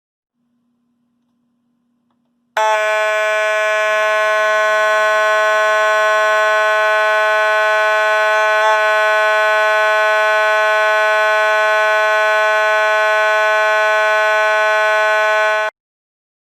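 Simplex 4904-9182 + 4901-9817 mechanical fire alarm horn sounding continuously with a steady, harsh buzzing tone for about 13 seconds. It comes on and cuts off abruptly.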